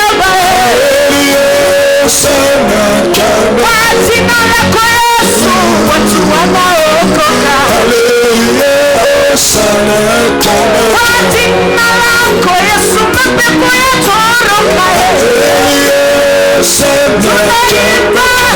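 Gospel worship music: a voice singing a praise song over instrumental accompaniment, loud and continuous.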